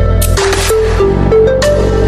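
Electronic background music: a synth melody stepping between held notes over a steady bass, with a couple of sharp cymbal-like swishes.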